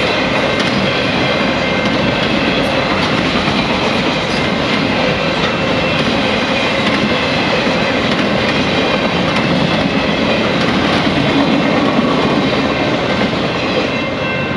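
Freight cars of a fast-moving CN mixed freight train rolling past: a loud, steady rush of steel wheels on rail with clickety-clack and a faint high-pitched ringing.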